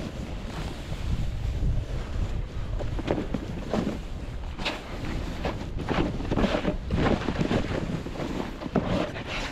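Wind buffeting the microphone during a downhill run on snow, with a series of short scraping swooshes as edges carve and skid through the snow, coming more often in the second half.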